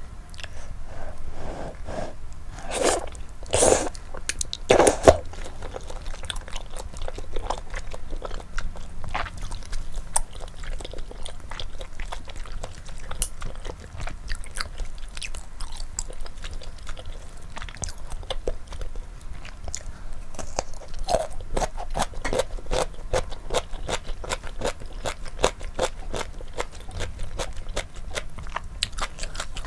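Close-miked eating of malatang with chewy flat bunmoja starch noodles: steady chewing and biting, a dense run of small wet clicks, with a few louder bites about three to five seconds in.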